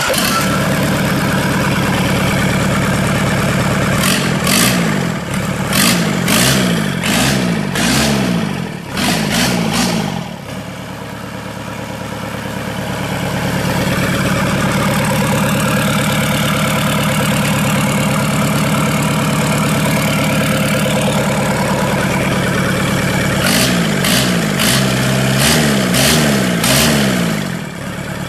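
Yanmar-built Volvo D2.2 four-cylinder diesel engine running, revved up and down repeatedly from about four to ten seconds in and again near the end, settling to a steady idle in between.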